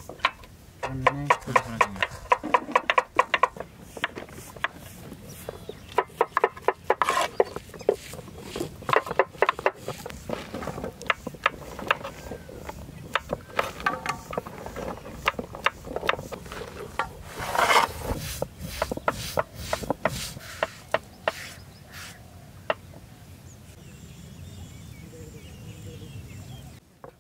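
Kitchen knives slicing button mushrooms on wooden cutting boards: a long run of sharp, irregular knocks from several knives at once, with quick bursts of strokes in the first few seconds. The knocks thin out and stop near the end, leaving a faint steady background.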